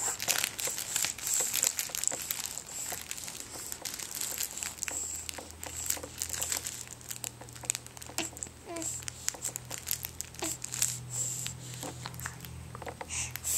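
Crinkly fabric baby toy being squeezed and shaken in a hand: dense, irregular crinkling throughout.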